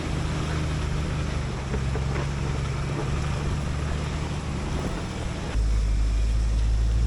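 Off-road vehicle engine running steadily at low speed on a trail, with some wind on the microphone. About five and a half seconds in, the sound switches abruptly to a louder, deeper engine hum.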